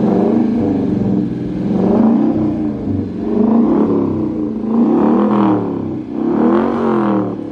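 Dodge Challenger R/T's 5.7-litre HEMI V8 idling and revved four times, each rev rising and falling in pitch, through its original exhaust with the mufflers deleted.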